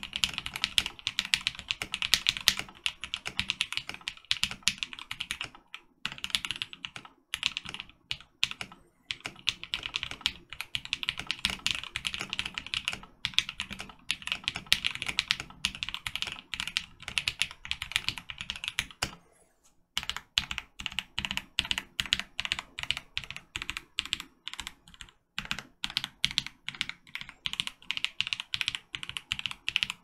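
Typing on a Portico mechanical keyboard with lubed, filmed Durock Lavender switches and 65 g springs, without a silicone dampener in the case. Fast, continuous keystrokes with a few brief pauses and a longer pause about two-thirds of the way in, followed by more evenly spaced keystrokes.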